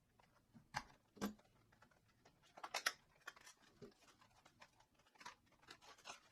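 Small box and its packaging being handled and opened: scattered light clicks and taps, with a short cluster of sharper clicks near the middle.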